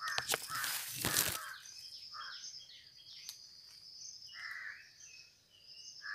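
Crows cawing now and then over steady high chirping of small birds, with a brief rush of noise in the first second or so.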